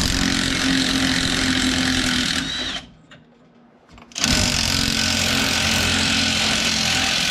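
Cordless impact wrench hammering as it loosens the bottom bolts of a truck's idler and pitman arms, in two runs of a few seconds each with a short pause about two and a half seconds in.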